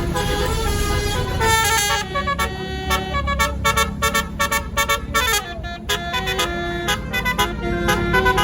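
Tour bus's 'basuri' telolet horn playing a quick melody of short notes that step up and down in pitch, over the low rumble of the bus's engine.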